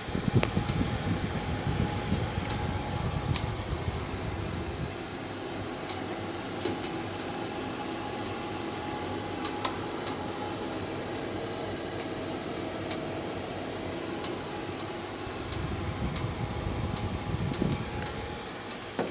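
Termal 6 pellet fireplace running, its fans giving a steady hum with a few faint steady tones, and scattered light clicks. Stretches of low rumble come in near the start and again late.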